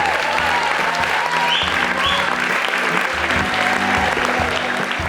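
Audience applauding, with a couple of short high cries from the crowd about halfway through, over low sustained instrument notes.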